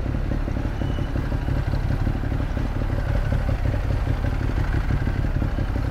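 2015 Ducati Monster 821's L-twin engine, fitted with an SC-Project exhaust, running steadily at low revs while the bike filters slowly between cars.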